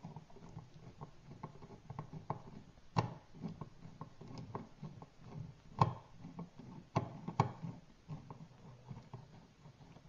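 Screwdriver turning out the mounting screw of an electrical outlet from its wall box: a run of faint scratchy ticks and scrapes of metal on metal, with a few sharper clicks near the middle.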